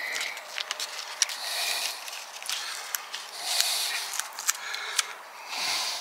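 Paper drilling template rustling and scraping against masking tape on a motorhome door frame as it is handled and pressed into place: short bursts of rustling about once a second, with a few sharp clicks.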